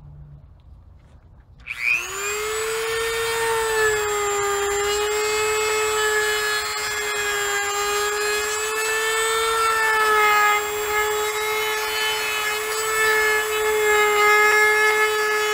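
Dremel rotary tool spinning up about two seconds in, then running at a steady high whine as its bit grinds into the plastic steering column cover to widen a hole.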